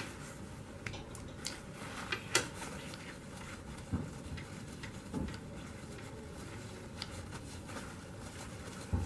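Paper towel crinkling and rubbing over a small revolver as it is wiped down with alcohol, with scattered light clicks and taps of the gun's metal against the hand and towel, the sharpest about two seconds in.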